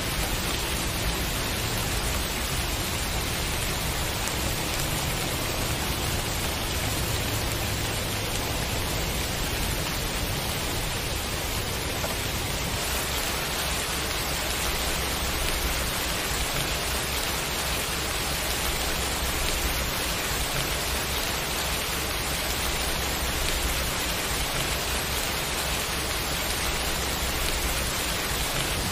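Steady rain falling, an even, unbroken hiss with a low rumble underneath that eases slightly after about twelve seconds.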